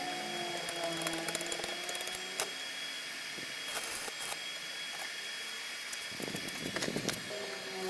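Homemade coconut grater driven by a washing machine motor, running with a steady high whine, scattered clicks and a rougher grating noise about six seconds in.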